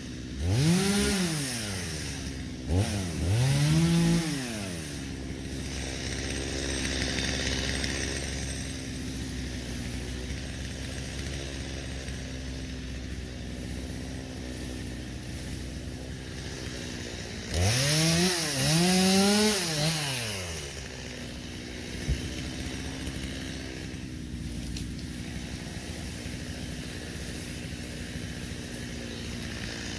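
Stihl MS 250 two-stroke chainsaw idling, revved up and straight back down in short bursts: about three quick revs in the first few seconds, then two more close together past the middle, settling back to a steady idle between them.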